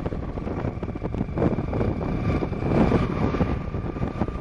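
Wind buffeting the microphone and road noise while riding a motorbike along a highway, with a faint steady whine and two brief swells in the noise, about a second and a half and three seconds in.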